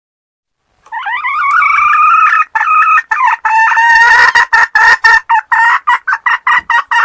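Wild red junglefowl hen cackling, starting about a second in: a long drawn-out call, then a run of short clucks that come faster and faster, the call used to lure junglefowl to a trap.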